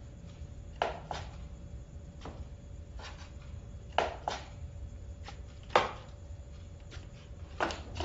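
A series of irregular sharp knocks and taps, some in pairs, the loudest about three quarters of the way through, over a faint steady hum.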